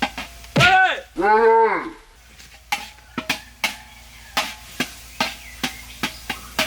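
Two short pitched sounds, each rising then falling, in the first two seconds. Then a metal utensil knocks against a frying pan in a string of sharp taps, about two to three a second, as food is stirred.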